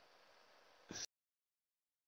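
Near silence: faint hiss with one brief faint sound about a second in, after which the audio cuts to dead silence.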